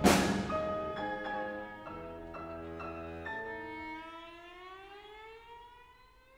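Contemporary chamber ensemble of strings and percussion playing: a loud percussion stroke, then held chords that shift every half second or so. About three seconds in, the chord slides slowly upward in pitch and fades out to silence near the end.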